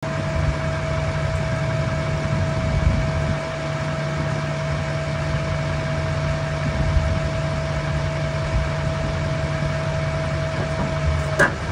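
Duramax V8 diesel running with its hydraulic system working an outrigger leg down, a steady low drone with a steady whine above it. The drone and whine drop away together with a short click near the end, as the hydraulic flow stops.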